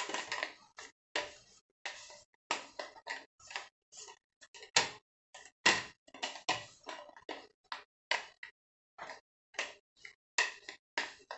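Plastic rolling pin rolling out dough on a countertop: irregular clicks and knocks, a couple a second, as the pin and its handles work back and forth.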